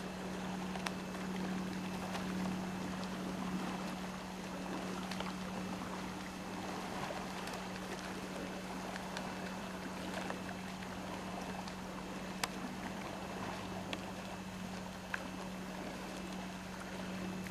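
A steady low hum, like a motor running, over a continuous wash of water noise from the sea surface, with a few sharp ticks scattered through.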